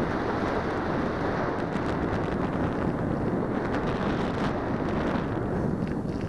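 Steady rush of airflow over the microphone of a camera mounted on the nose of an unpowered Alula Evo discus-launch glider in flight. It is an even, deep wind noise with no motor sound.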